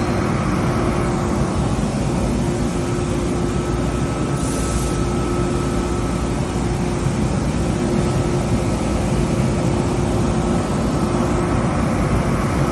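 Mori Seiki DuraVertical 5100 vertical machining center running under power: a steady mechanical whir and hum with a constant tone.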